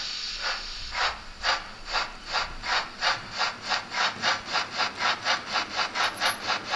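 Steam chuffs from the sound decoder of a Märklin Bavarian S 3/6 model steam locomotive, speeding up from about two to about five a second as the train gathers speed.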